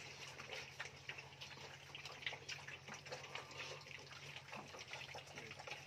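A litter of piglets eating from a shared feeding pan: irregular wet smacking, slurping and clicks of many mouths at once. A steady low hum runs underneath.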